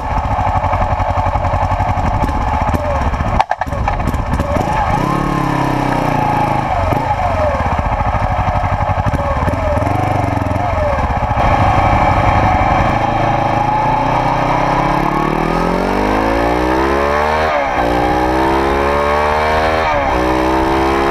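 1991 Suzuki GS400E's air-cooled 400 cc parallel-twin engine with a one-off silencer, heard from a camera mounted on the bike. It runs at low speed with small throttle changes, with a sharp click a few seconds in. Then it accelerates with its pitch rising, dropping suddenly at two gear changes, about three-quarters of the way in and again near the end.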